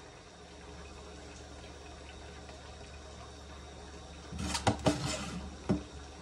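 A metal spoon scooping edamame beans from a stainless mesh strainer, with a quick run of clinks and scrapes about four seconds in and one more clink shortly after. A steady hiss and low hum sit under it throughout.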